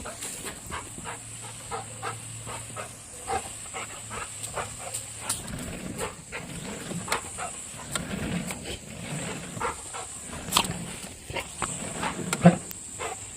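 A garden sprinkler hisses steadily while a dog plays in the spray, with many irregular clicks and splashes and some low grunting sounds from the dog.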